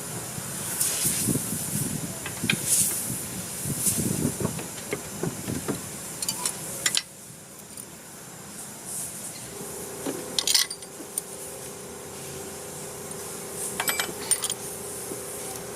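Workshop clatter of metal tools and engine parts clinking, with short bursts of hissing in the first half. After an abrupt drop in level, a steady hum runs on with a few more sharp clicks.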